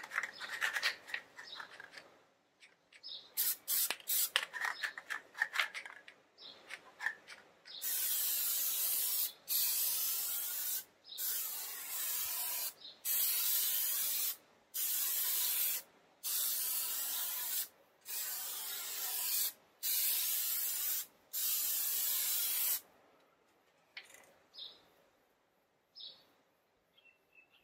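Plasti Dip aerosol spray can being sprayed in about ten short hissing bursts of a second or so each, with brief pauses between them. The bursts follow a few seconds of quick rattling clicks.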